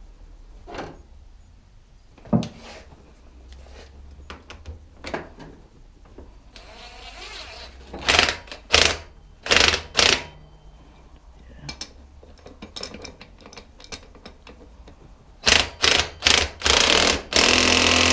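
Impact wrench (impact gun) run in short bursts while tightening nuts on a 17 mm socket: a few bursts about eight to ten seconds in, then a quick string near the end finishing in one longer run of about two seconds. Small clicks and knocks of tools being handled come in between.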